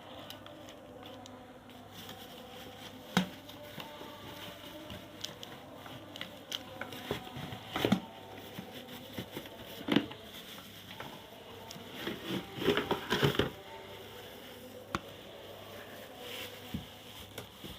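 Packaging being handled as an electric kettle is unboxed: scattered crinkling, taps and knocks of cardboard and wrapping, busiest for a second or so about twelve seconds in.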